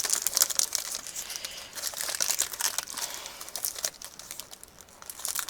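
Squishy toy's packaging crinkling and crackling as it is handled and worked open by hand, busiest at first and thinning out after about four seconds.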